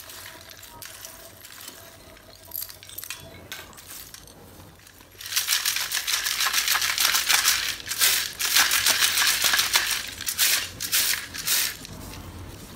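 Roasted multani mitti (fuller's earth) chips handled in a round steel tub: a light rustle of the dry pieces, then from about five seconds in a dense rattle and clinking as the brittle clay pieces are shaken against the metal, easing off near the end.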